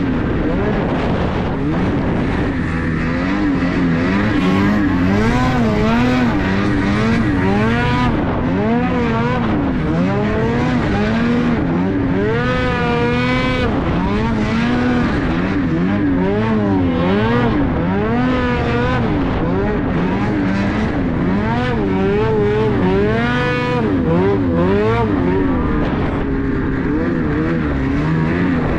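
Ski-Doo 850 snowmobile's two-stroke twin engine being ridden hard through deep powder, its revs rising and falling every second or so with the throttle.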